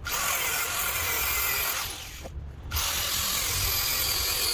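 Power tool cutting through a steel anti-roll bar, in two long passes with a short break about two seconds in.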